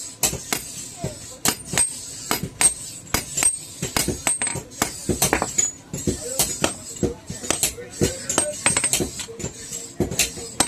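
Hand hammer striking hot iron on an anvil in an irregular rhythm of a few blows a second, each blow with a bright metallic ring.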